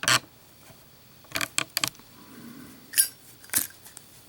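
A street-chrome Zippo lighter with a steel insert making sharp metallic clicks and clinks during a drop test. There is a cluster of small clicks, then a louder knock about three seconds in and another about half a second later as the lit lighter hits the surface and bounces.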